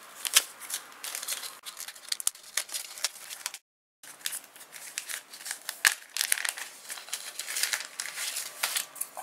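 Fingerboard packaging being handled and opened by hand: irregular crinkling, rustling and small clicks of plastic and card. A short dropout to silence a little under four seconds in.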